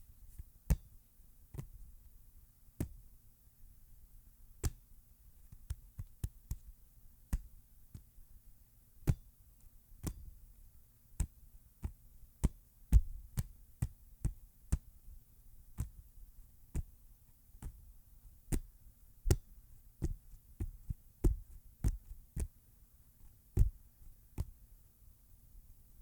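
A football being palmed: a hand slapping and striking the ball in an irregular series of sharp thuds, about one or two a second, some much louder than others.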